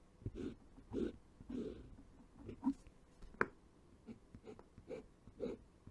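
Fine-liner pen nib drawing short hatching strokes on paper, close to the microphone. The strokes come about two a second, with one sharper, louder tick about halfway through.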